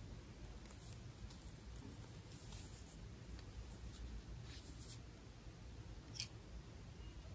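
Faint rustling and scraping of a small fabric cloth being handled and draped over a small plastic toy clothes hanger, with one sharp plastic click a little after six seconds in.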